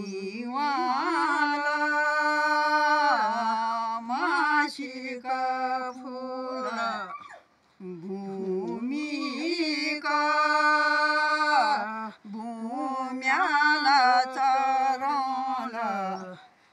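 Intro music: a singing voice holding long, slightly wavering notes, in three phrases with short breaks about seven and a half and about twelve seconds in.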